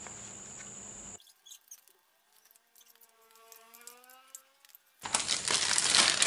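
Thin plastic bag crinkling loudly as it is opened and handled, starting about five seconds in. Before that, a brief steady hiss, then near-quiet with faint spoon clicks against a plastic bowl and a faint wavering tone.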